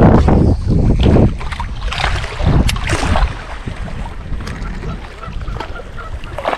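Wind buffeting the microphone in gusts as a loud low rumble, over choppy lake water lapping against the side of the boat.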